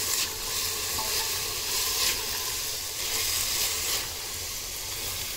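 Mushrooms and green peas sizzling in hot masala in an open pressure cooker, stirred with a silicone spatula. The sizzle swells and falls with the stirring strokes.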